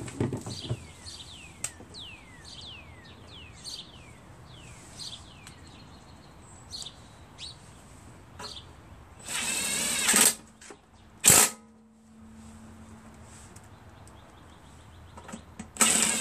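Cordless drill-driver running screws into the mower engine in short bursts: one lasting about a second some nine seconds in, a brief burst just after, and another of about a second near the end. Before that, a bird gives a series of quick falling chirps.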